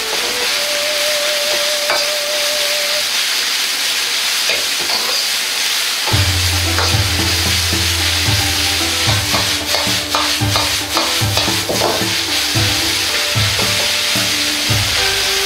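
Shredded Chinese cabbage and carrot sizzling in a hot wok while a metal ladle stirs and turns them, with the ladle scraping and clinking against the wok, most often in the middle of the stretch.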